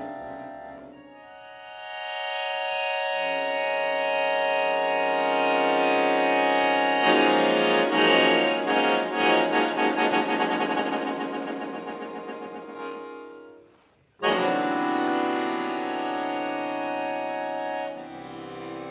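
Accordion playing a contemporary piece on a distorted recording: held chords swell up, turn into a passage pulsing a few times a second that fades nearly to nothing, then a sudden loud chord enters about fourteen seconds in and is held for several seconds.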